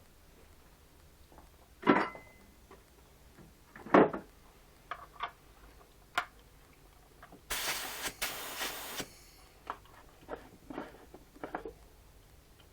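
Two loud knocks, then a hiss of about a second and a half from a paint spray gun's air being triggered while priming, with light clatter of handling around it.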